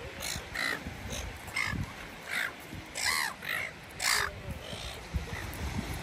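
Silver gulls calling: a run of short, harsh squawks, about eight in the first four seconds, then fewer and fainter.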